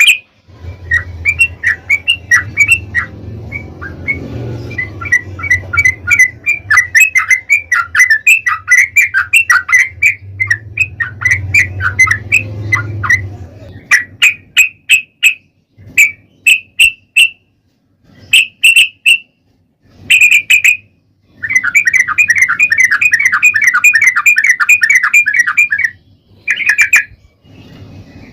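Yellow-vented bulbul (trucukan) singing its fast chattering song: rapid runs of short notes in bursts with brief pauses, including one long unbroken run about three-quarters of the way through. A low hum sits under the song for the first half.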